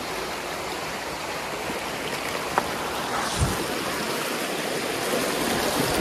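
Stream water flowing steadily at a footpath water crossing, with one low thump about three and a half seconds in.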